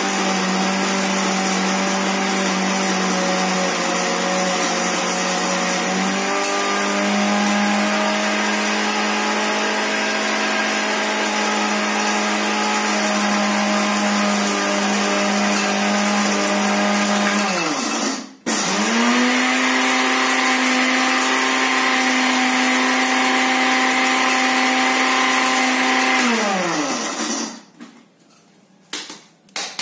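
Small electric blender with a dry-grinding jar running steadily, grinding dry instant noodles into a flour-like powder. Its motor stops and winds down about two-thirds of the way through, starts again a second later, then winds down once more, followed by a few sharp clicks as the jar is taken off the base.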